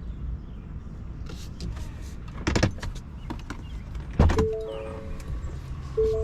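Steady low vehicle rumble with two sharp knocks about a second and a half apart, like a door or latch. Near the end a short repeating figure of steady tones at a few pitches begins.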